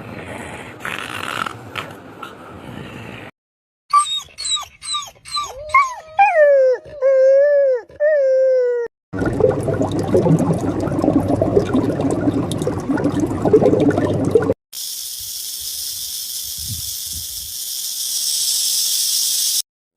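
A run of different animal sounds edited one after another with short silent gaps. First comes a rough noisy stretch. Then a series of pitched calls rising and falling in pitch, then a loud rough stretch, and near the end a steady high hiss.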